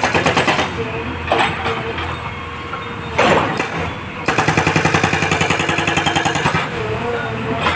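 Hydraulic breaker on a JCB backhoe loader hammering in rapid bursts of about ten blows a second over the running engine: a short burst at the start, a single sharp crack about three seconds in, then a longer burst of about two seconds.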